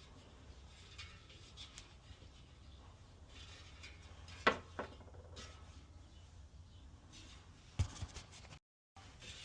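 Faint handling of a bicycle wheel and spoke wrench during truing: a sharp metallic click about four and a half seconds in, a lighter click just after, and a dull thump near the end, over a low steady hum.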